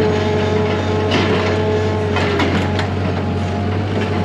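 A motor running steadily, with a few clattering knocks over it.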